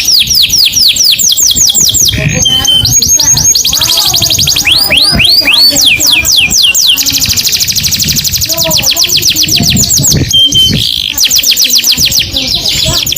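Canary singing continuously in long, fast trills of repeated sliding notes. The trills are broken by a brief steady whistle about two seconds in and again about ten seconds in.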